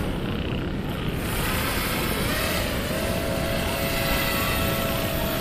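The motors and propellers of a four-motor radio-controlled airboat whine. They are throttled back at the start, spool up again about two seconds in, then hold a steady whine.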